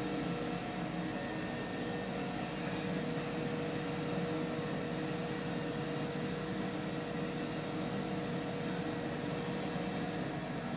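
Steady machine-like hum with a faint steady tone, holding at one level; the tone fades out near the end.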